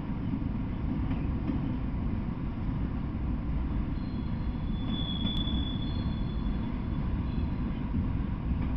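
Freight train of autorack cars rolling past: a steady low rumble of wheels on rail. A thin, high wheel squeal rises from about four to seven seconds in.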